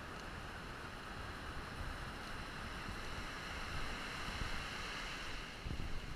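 Ocean surf washing onto a sandy beach, a steady hiss, with wind rumbling on the microphone. A few low thumps come near the end.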